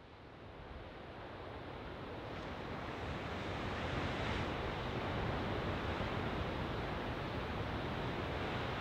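Ocean surf washing against a rocky headland: a steady rushing wash that swells up over the first few seconds, then holds even.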